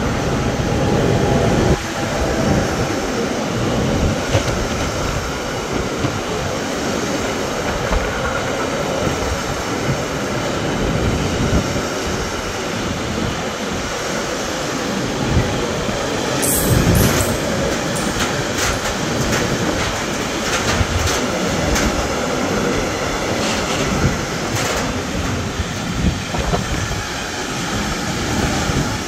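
Container freight train rolling past behind an electric locomotive: a steady rumble of steel wheels on rail, with a run of sharp clicks from the wagons' wheels about halfway through.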